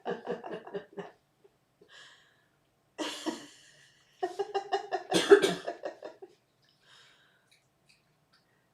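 A person laughing in quick, rhythmic bursts, with a short cough-like burst about three seconds in, then a second, longer run of laughter that stops about six seconds in.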